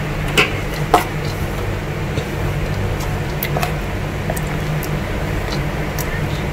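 A few light clicks and taps of a whisk and plate against a bowl as chopped vegetables are scraped in, the sharpest two about half a second and a second in, over a steady low hum.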